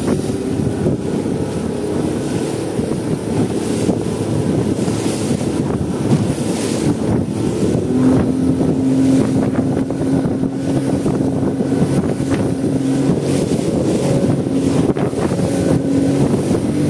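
Yamaha Enduro two-stroke outboard motor running steadily under way, with wind buffeting the microphone and water rushing past the hull. About halfway through, a steady engine hum stands out more clearly and the sound gets a little louder.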